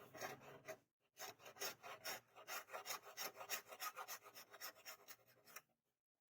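Hand filing: quick, rhythmic rasping strokes, several a second, with a short pause about a second in, stopping abruptly near the end.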